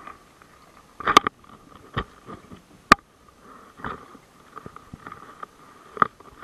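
Scattered knocks and bumps of handling in a small open fishing boat as an octopus is lifted out of the water and held aboard: a handful of short sharp knocks a second or so apart, the loudest about a second in and about three seconds in.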